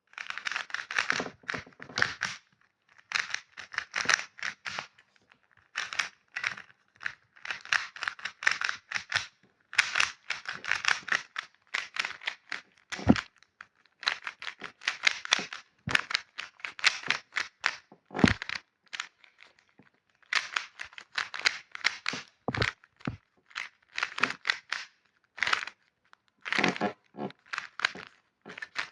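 Rapid clicking and crackling sound effects for a Rubik's cube being turned, in bursts of a second or two cut off by short silences, with a few sharper knocks among them.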